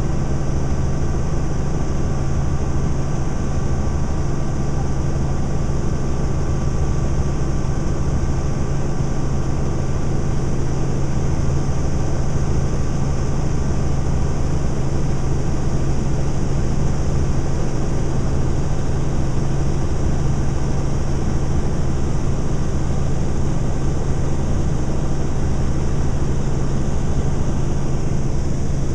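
Steady drone of a helicopter in flight, heard from inside the cabin: a strong low hum with faint higher whining tones above it.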